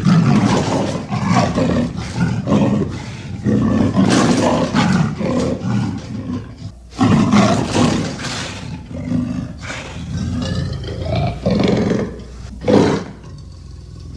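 Big cat roaring and growling in a run of loud, rough roars with short pauses between them, the sharpest roar near the end.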